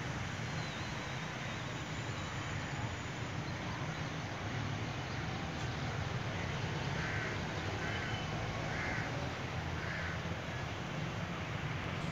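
Four short animal calls about a second apart in the second half, over a steady low rumble.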